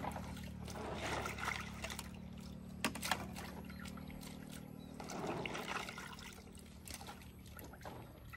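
Plastic hydroponic planting cups being washed by hand in a tub of water: water sloshing and splashing in two spells, about a second in and again about five seconds in, with a few light plastic knocks around three seconds. A steady low hum runs underneath.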